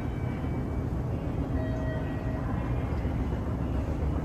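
Hitachi escalator running upward, a steady low rumble and hum from the moving steps and drive.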